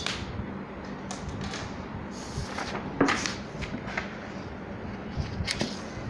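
A few light clicks and knocks of small hard objects being handled, the loudest about three seconds in, over a steady low hum.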